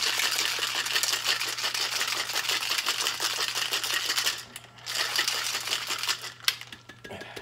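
Ice rattling hard inside a two-piece stainless-steel cocktail shaker being shaken: a fast, continuous rattle for about four seconds, a brief break, then a couple more seconds of shaking that thins out to a few last clicks near the end.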